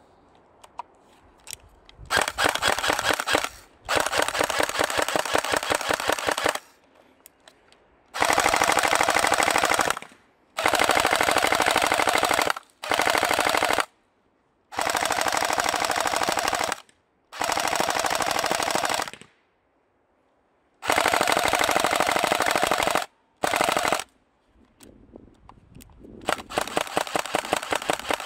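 Airsoft rifles firing about ten full-auto bursts, each one to three seconds long, with short pauses between them. Near the end comes a run of separate, more spaced-out shots.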